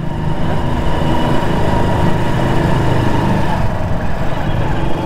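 Motorcycle running steadily while being ridden, a continuous low rumble mixed with wind noise on the microphone.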